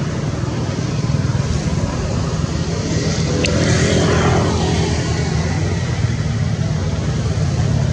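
Steady low outdoor rumble, with a motor vehicle passing by about three to five seconds in and a single sharp click midway.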